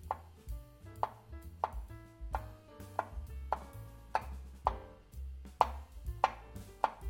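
Kitchen knife chopping wild asparagus on a bamboo cutting board: a dozen sharp, uneven knocks of the blade on the wood, roughly one or two a second, over soft background music.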